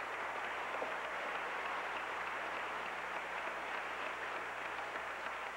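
An audience applauding steadily, a dense patter of many hands clapping, over a faint low hum.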